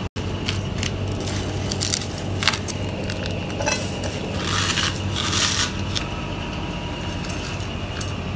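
Chicken wings being dredged in breadcrumbs: scattered scrapes and crunches of crumbs against a dish, with light clicks and a longer crunching rustle about halfway through, over a steady low hum.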